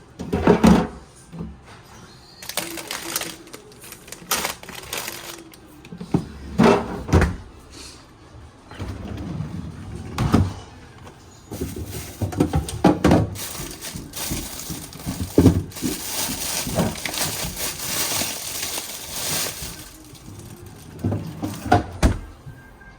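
Irregular knocks and clatter of objects being handled and set down, with a few seconds of steady rushing noise about two-thirds of the way in.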